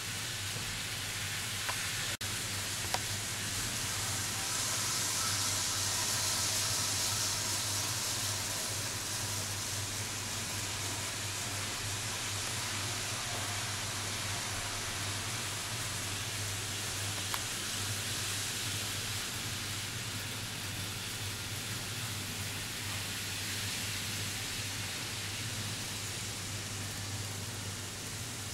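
Model trains running on track: a steady hiss over a low hum, swelling for a few seconds about five seconds in, with a few faint clicks near the start.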